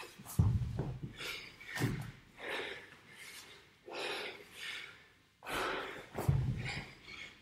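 A man breathing hard and loudly while exerting himself in a workout, with gusts of breath about once a second. Heavy thuds hit the wooden floor, loudest about half a second in and again about six seconds in.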